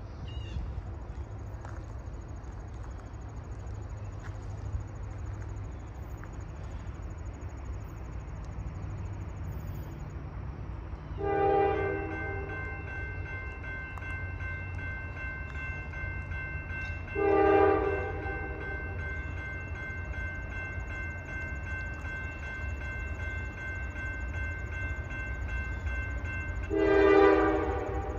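Diesel locomotive horn sounding as a slow freight train approaches: three loud blasts, the second about six seconds after the first and the third about ten seconds later. A softer chord is held between them. Under it runs a continuous low rumble of the locomotives' diesel engines.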